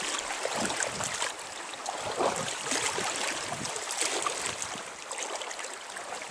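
River water rushing and splashing close by, easing off a little toward the end.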